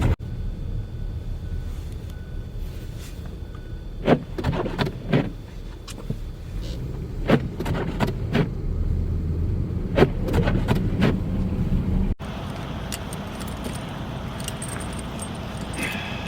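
Low rumble of vehicles in a snowstorm, with a scattering of sharp metallic clinks and knocks, most of them in the middle of the stretch; the sound changes abruptly about twelve seconds in.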